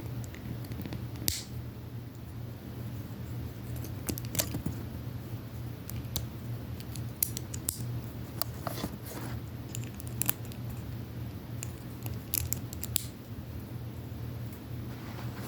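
Plastic Lego bricks clicking and rattling as they are handled, in scattered sharp clicks, over a steady low hum.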